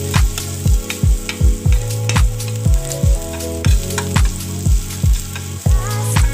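Minced garlic sizzling in oil in a metal pan as a spoon stirs it, under background music with a steady beat of a deep kick drum about twice a second.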